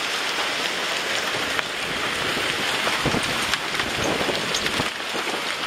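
Hailstorm: a dense, steady hiss of hail and rain coming down, with many sharp ticks of hailstones striking a surface.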